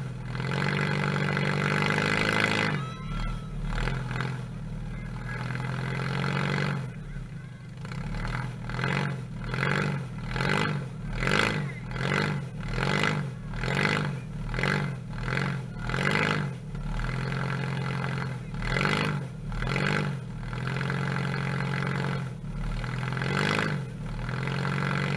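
Demolition derby car's engine running, revved up and down in quick repeated blips of about one and a half a second through the middle, with a few slower revs near the end.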